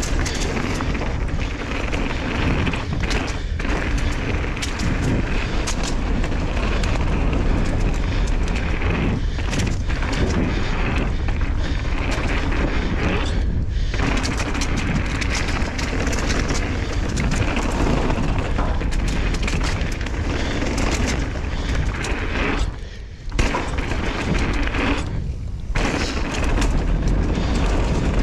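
Mountain bike ridden fast down a flow trail of berms and rollers: wind buffeting the microphone in a steady low rumble, with tyres on dirt and the bike's chain and frame rattling in quick sharp clicks. The noise drops out briefly about three-quarters of the way through.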